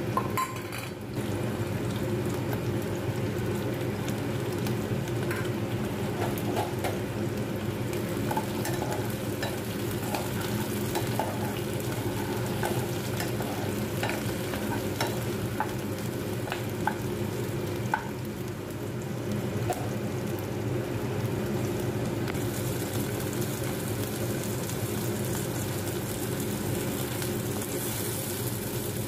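Onion chunks, garlic and green bell pepper sizzling as they fry in oil in a non-stick pan. A spatula stirs them, with scattered light clicks and scrapes against the pan. A steady low hum runs underneath.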